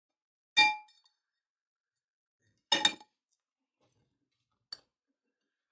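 Steel parts of a bottle hydraulic jack clinking as its outer cylinder is handled and set onto the base. A ringing metallic clink comes about half a second in, a double clink near the middle, and a small clink near the end.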